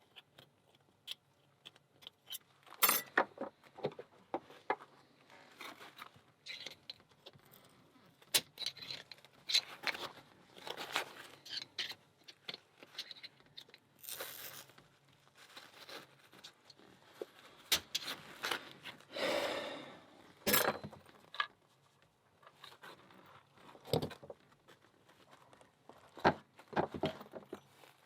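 Small metal lock parts and tools being handled: irregular clicks, taps and short scrapes, with a longer rubbing scrape about two-thirds of the way through.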